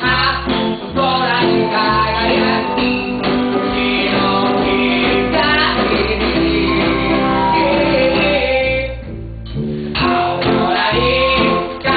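A pub band playing a song with singing and guitar. The music thins out briefly about nine seconds in, then comes back in full.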